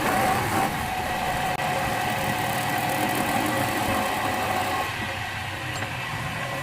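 Wood lathe running with a steady machine hum; a held tone in it drops out about five seconds in.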